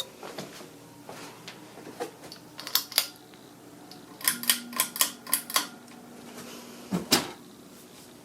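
Irregular sharp clicks and taps: a few single ones, a quick run of about seven near the middle, and a pair near the end, over a faint low hum.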